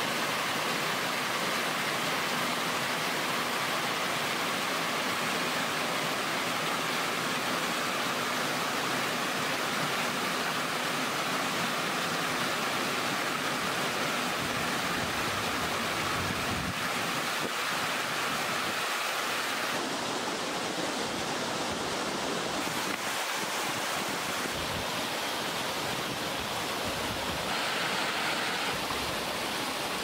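Stream water rushing and splashing over rocks in small cascades, a steady rush that shifts a little in tone about two-thirds of the way through and again near the end.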